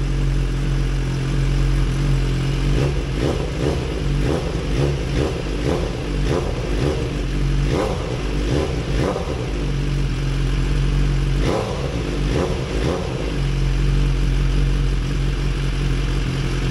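Motorcycle engine running with a steady idle and a series of quick throttle blips between about three and thirteen seconds in. It runs without misfiring, the engine-module fault that held injector number 5 open now cured.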